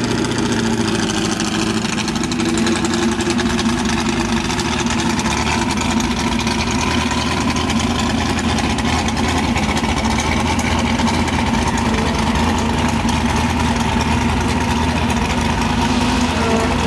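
Ford GT40 race cars' V8 engines idling steadily, a constant low engine note throughout, as one car rolls slowly by.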